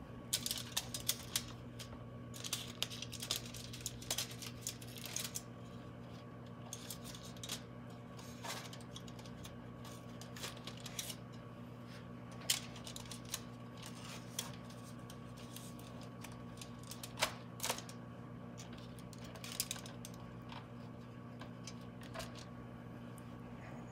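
Irregular clicks and taps of hands-on food preparation at a kitchen counter over a steady low hum. The clicks are busiest in the first few seconds, then come in scattered bunches.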